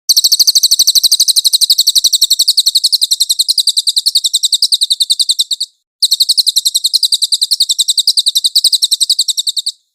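Cililin bird singing a high, rapid trill of evenly repeated notes, more than ten a second, in two long runs with a brief break a little past the middle.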